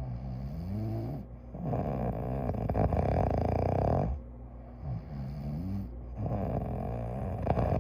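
A sleeping person snoring in a steady breathing rhythm: two long rasping snores, the first starting about one and a half seconds in and the second near the end, with a softer breath between them whose pitch rises and falls.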